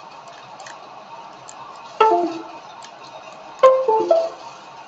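A computer's USB device connect/disconnect chime sounds twice, each a quick run of falling notes. The Gigabyte Aorus M2 mouse is dropping and regaining its connection as it is wiggled, the sign of a loose connection inside the mouse.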